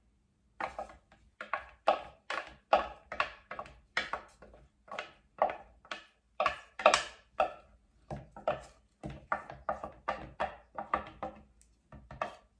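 A stir stick scraping thick Floetrol paint conditioner out of a plastic measuring cup into a pitcher, in short repeated strokes, about two or three a second.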